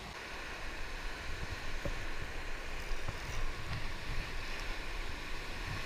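Ocean surf washing against the rocks below, a steady rush of noise, with scattered low bumps of wind on the microphone.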